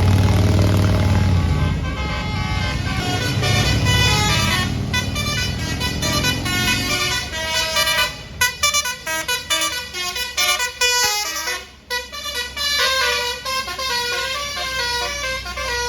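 Bus's Basuri 'telolet' multi-tone musical horn playing a fast tune of quickly changing notes. The bus's engine runs loud under it in the first two seconds.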